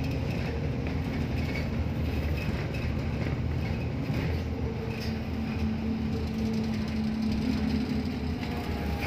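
City bus engine running with a steady low drone and a faint constant hum.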